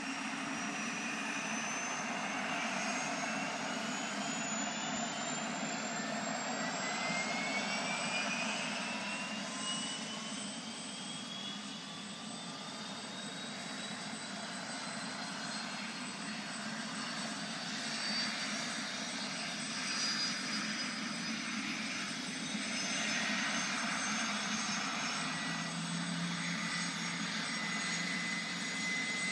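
Helicopter turbine engine spooling up: a whine that climbs slowly in pitch over the first several seconds and then holds, over a steady low engine rumble.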